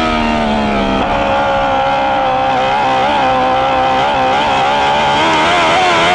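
Dwarf race car's motorcycle engine at high revs, heard from inside the car: the pitch drops in the first second as the throttle is lifted, wavers at lower revs through the middle, then climbs again near the end as it is put back on the throttle.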